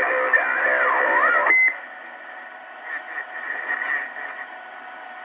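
CB radio speaker receiving skip: a warbling, distorted transmission with sliding tones ends in a short beep about a second and a half in. Faint, steady band static and hiss follow.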